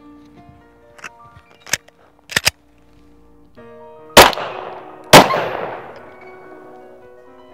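A few small metallic clicks as a 9mm pistol is readied, then two loud pistol shots about a second apart, each with a long echoing tail, over background music.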